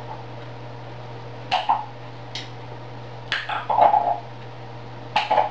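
African grey parrot making short squawks and clicking calls in about four brief bursts, over a steady low hum.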